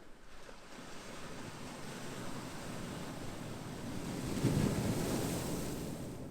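Ocean surf: a wave swelling and breaking, loudest a little past the middle, then easing back into the wash.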